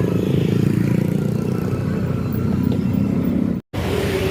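Bus engine running with a steady low rumble. The sound cuts out for an instant near the end.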